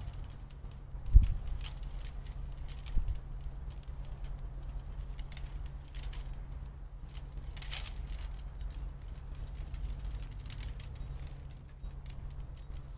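Wind rumbling on the microphone, with scattered faint clicks and rustles. A dull thump about a second in is the loudest sound, with a smaller one about two seconds later.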